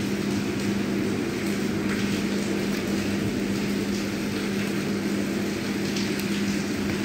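Steady mechanical hum with a constant low tone, running evenly throughout.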